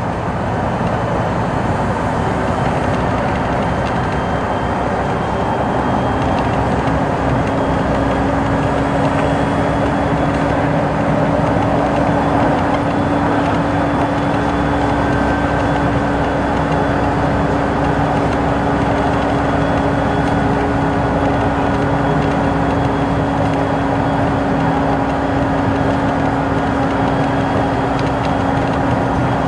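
Car driving along a bridge deck: steady tyre and road noise with no break, joined about six seconds in by a steady hum that holds to the end.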